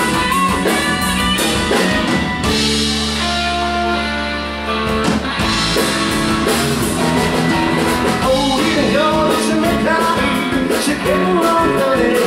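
Live rock band playing: electric guitar, bass guitar and drum kit. About two seconds in, the band holds a chord while the drums drop out, then the full band comes back in. Singing joins near the end.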